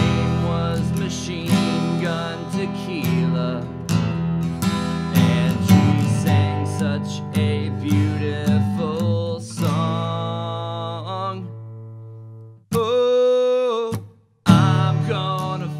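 Acoustic guitar music, picked and strummed. Near the end it fades away, a short held note sounds for about a second, and after a brief silence the guitar starts again.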